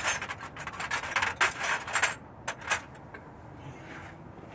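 Metal sockets clinking and rattling against each other as they are sorted through by hand, looking for a 13 mm hex socket; the clatter stops about three seconds in.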